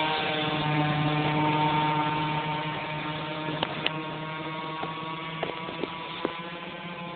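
Zenoah two-stroke petrol engine of a radio-controlled racing boat running flat out at a steady pitch, growing fainter as the boat speeds away across the water. A few light clicks come in the second half.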